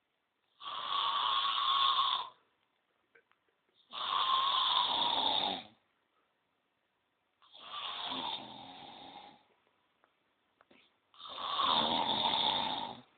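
A sleeping person snoring: four long, rasping snores, one about every three and a half seconds, with quiet breaths between them.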